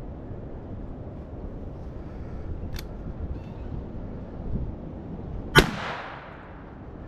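A single sharp click, then a few seconds later one rifle shot from a Ruger 77/22 in .22 WMR, the loudest sound, ringing off for about a second: a close-range shot to dispatch a wounded squirrel. Wind rumbles on the microphone throughout.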